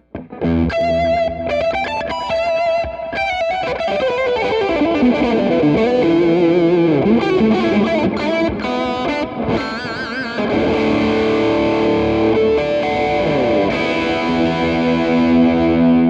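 Electric guitar played through a Donner Morpher distortion pedal on its 'classic' setting: a distorted lead line of picked single notes with vibrato and bends, then held, ringing notes in the second half.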